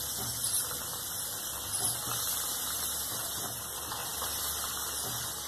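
Hot oil sizzling steadily as potato-and-semolina cutlets deep-fry in a kadhai, with a brief louder crackle about half a second and about two seconds in.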